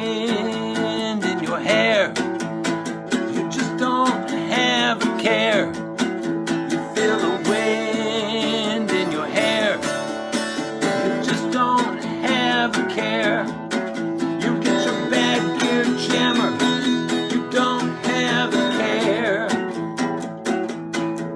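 Instrumental passage of an acoustic guitar performance: steady rhythmic strumming, with a melodic line above it that bends in pitch.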